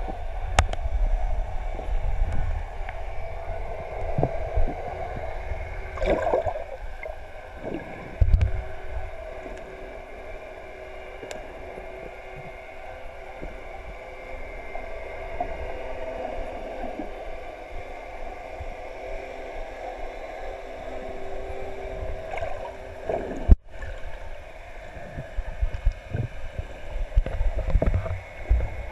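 Muffled underwater sound heard through a GoPro Hero 3's waterproof housing: a low rumble and gurgling of water moving around the submerged camera, with a few sharp clicks.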